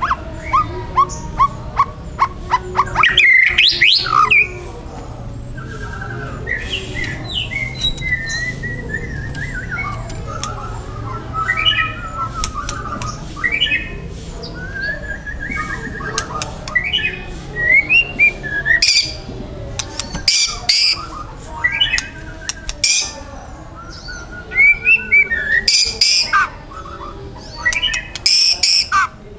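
White-rumped shama (murai batu) in full, heated song: a varied run of clear whistled phrases and trills broken by frequent sharp, loud chip notes.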